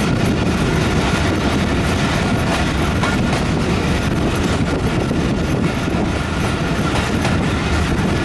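A train running at speed, heard from aboard out of an open window or door: a steady, unbroken rumble of wheels on the rails.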